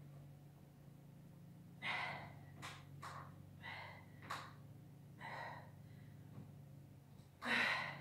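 A woman breathing hard from exertion, in a string of sharp gasping breaths every second or so, the loudest near the end. A steady low hum runs underneath.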